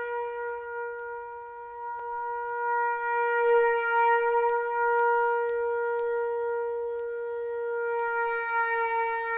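Solo trumpet holding one long, steady note, growing louder a few seconds in and then easing back slightly.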